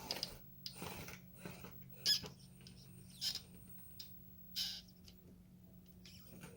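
A micro-scale RC crawler's small electric motor and gears whirring in several short bursts as the throttle is blipped, over a steady low hum.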